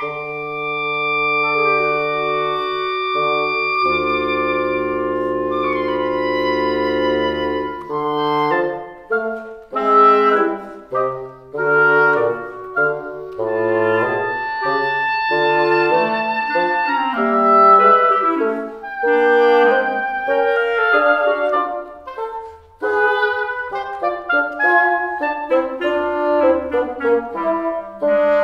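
Woodwind trio of oboe, clarinet and bassoon playing chamber music: long held chords for the first several seconds, then quicker, detached moving lines passed among the three instruments.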